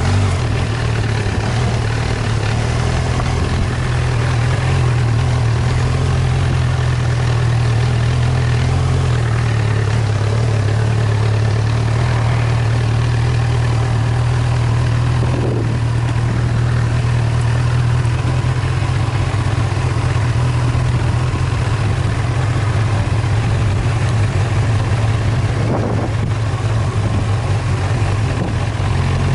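A vehicle engine running steadily, a low drone that stays at one pitch, with the rumble of tyres on a dirt track over it.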